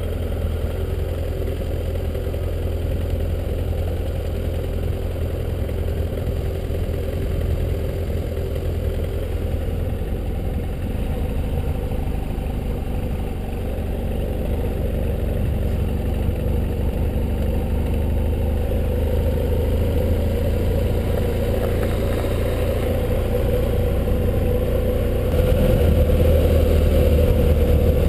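Motorcycle engine running steadily under way, with a continuous rush of riding noise; it gets louder near the end.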